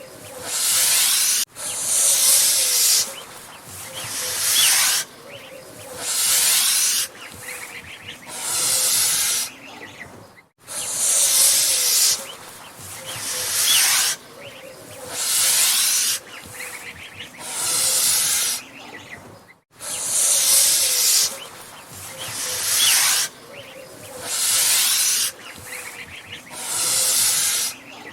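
Angry goose hissing over and over: breathy hisses about a second long, coming roughly every two seconds.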